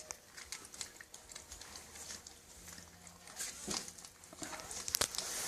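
Young puppies moving about: irregular small clicks, taps and patters, with a louder tap about five seconds in.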